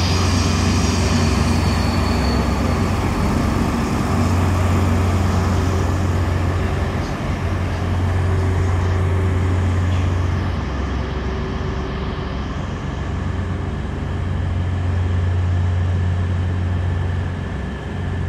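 Diesel test train passing slowly: Class 43 HST power cars hauling yellow Network Rail coaches, with a steady low engine hum over wheel and rail rumble. A high squeal fades over the first few seconds.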